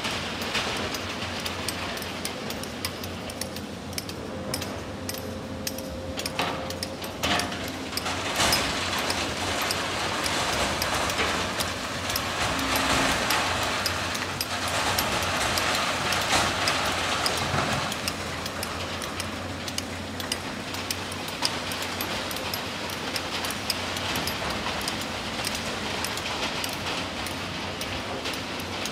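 Hydraulic excavator running as it loads rock and sand into a dump truck, with stones clattering and knocking. A rush of falling material is loudest about halfway through.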